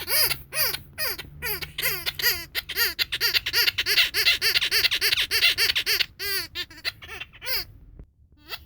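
Rubber cow squeaky toy squeezed over and over, each squeak a short arch that rises and falls in pitch. The squeaks come fast, about four or five a second in the middle, then slow and pause shortly before the end.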